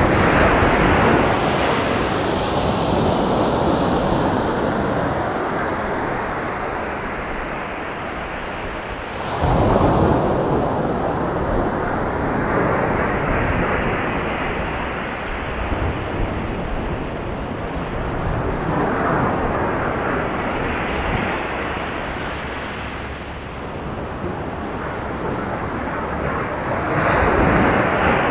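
Sea waves breaking on the shore and washing back, swelling four times about nine seconds apart.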